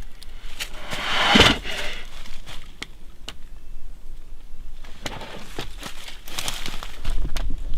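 Brown bear's claws scraping and gripping tree bark as it climbs the trunk: irregular scratching and crackling, with louder scraping spells about a second and a half in and again near the end.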